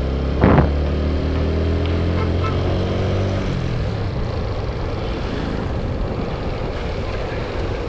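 TVS Apache RTR 160 4V motorcycle running on the road, its engine note dropping as it eases off over a few seconds and giving way to steady road and wind noise. A brief horn beep sounds about half a second in.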